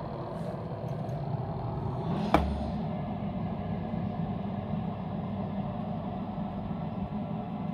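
Electric food dehydrator's fan motor running with a steady hum while drying fruit-purée leather. A single sharp click about two and a half seconds in.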